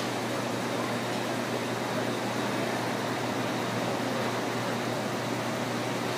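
Dexter washing machine running with a steady mechanical hum and whir that does not change.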